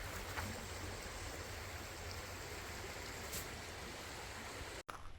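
A creek running, a steady rushing of water that cuts off abruptly near the end.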